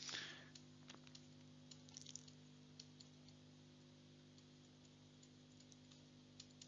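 Near silence: faint scattered clicks and taps of a stylus on a tablet screen as numbers are handwritten, over a steady low electrical hum, with a brief soft hiss at the start.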